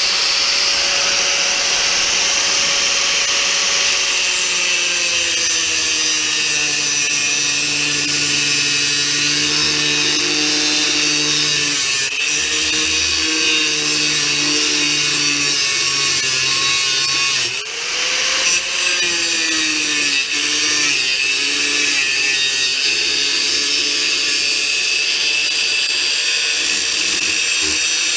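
Power tool cutting into a steel saw blade with a loud, continuous grinding hiss. The motor's hum sags and wavers under load, stops briefly about 18 seconds in, then spins back up.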